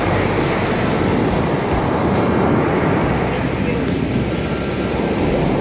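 Steady rush of wind and sea waves, with wind buffeting the microphone.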